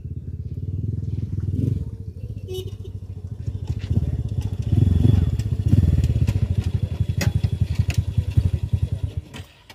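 A small engine running with a rapid, even pulsing beat, rising and falling a little, then stopping abruptly near the end.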